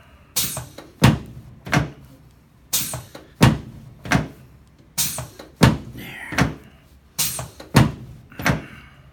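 Sharp knocks from a chiropractic adjustment working up the lower back, four quick groups of three.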